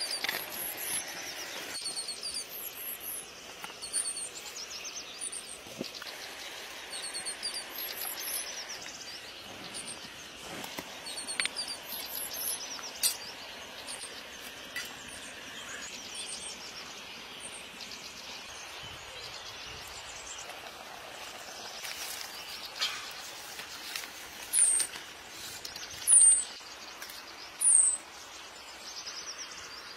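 Outdoor ambience of small birds chirping: short, high-pitched chirps repeat throughout, with three louder, downward-sliding chirps near the end, over a steady background hiss of insects.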